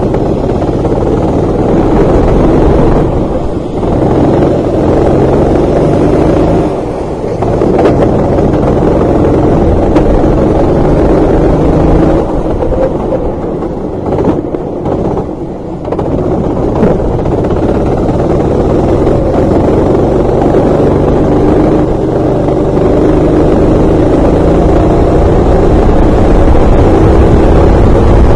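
Racing kart engine running hard, heard from the onboard camera; the revs and level drop briefly a few times as it lifts off for corners, then climb steadily on the straight near the end.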